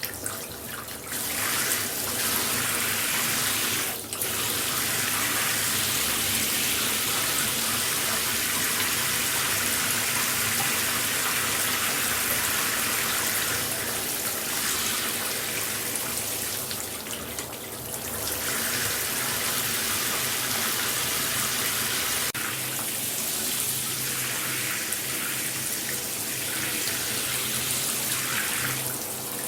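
Shower spray running steadily, a dense hiss of falling water. It is thinner at the start, then dips briefly a couple of times, once near four seconds and again past the middle.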